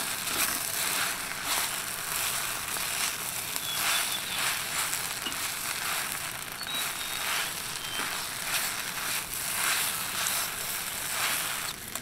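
Fried rice with egg and lettuce sizzling in a wok over a gas camping burner, while a metal ladle scrapes and tosses it in strokes about once a second.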